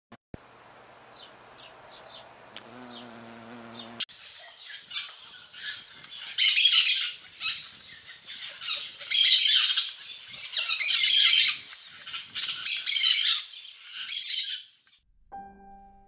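A songbird singing loud, rapid, high-pitched trilled phrases, repeated in bouts over about ten seconds. A faint low hum comes before it, and a piano note enters near the end.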